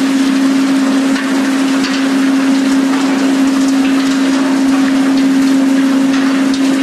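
Continuous bulk ship unloader working coal in a cargo hold: a steady machine hum under a loud, even rush of noise.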